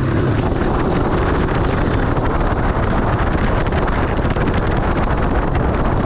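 Wind rushing over the helmet camera's microphone while riding a Yamaha XT225 dual-sport motorcycle, its air-cooled single-cylinder four-stroke engine running steadily under the wind noise.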